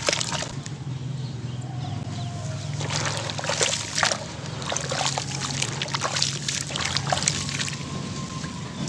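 Hands sloshing and squeezing crumbling charcoal-cement lumps in a basin of water: wet splashing and squelching with scattered crisp crackles, busiest through the middle.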